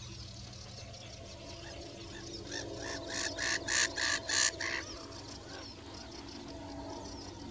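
Wild birds calling around a wetland: a background of small high chirps and song phrases, and from about three seconds in a loud series of about six repeated harsh calls, about three a second, that stops after under two seconds.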